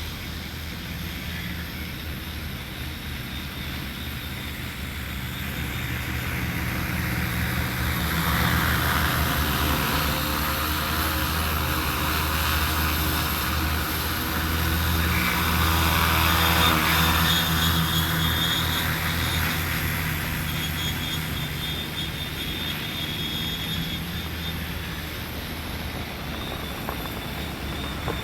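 A 15-litre agricultural spraying drone in flight, its rotors giving a steady drone with a low hum. It grows louder twice around the middle as it passes close, then fades back.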